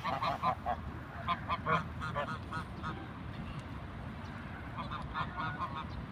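A flock of domestic ducks and geese calling, many short honks and quacks overlapping, busiest in the first two seconds and again near the end.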